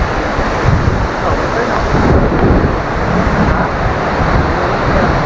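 Waterfall rushing, a loud, steady roar of falling water with a low rumble.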